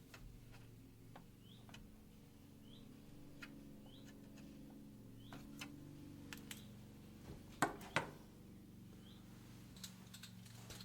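Light clicks and taps of hands handling computer hardware inside a desktop PC case, with two sharper clicks about three quarters of the way through, over a faint steady low hum.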